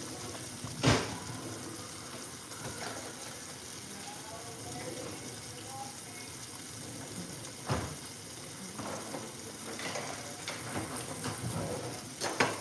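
Kitchen tap running steadily, with three sharp knocks of kitchenware, about a second in, around two-thirds of the way through and near the end.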